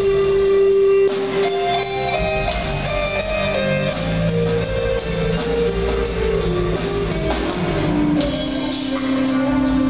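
Rock band playing live: electric guitars carry a sustained, stepping melodic line over bass and drums, with no vocals.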